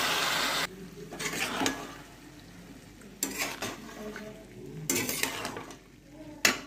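Water sizzling on the hot sauce in a steel wok, cutting off abruptly under a second in. Then a steel spatula scrapes and stirs the cauliflower around the pan in four short strokes.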